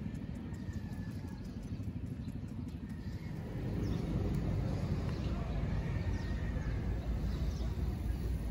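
Steady low outdoor rumble that grows a little louder about halfway through, with faint bird chirps over it.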